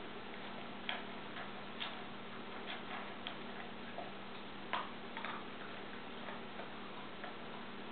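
Dog eating dry kibble from a stainless steel bowl: irregular sharp crunches and clinks of kibble against the metal, a little under one a second, with the loudest near the middle.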